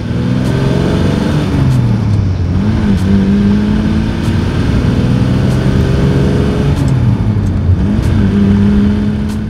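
1962 Maserati 3500 GT's twin-cam straight-six engine pulling the car along, heard from inside the cabin. Its pitch rises over the first second or so, dips briefly about two seconds in and again near the end, and otherwise holds steady.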